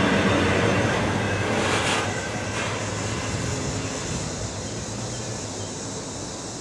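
Tail end of a freight train of autorack cars rolling past on the rails, its steady wheel-and-car rumble fading away as the last car recedes.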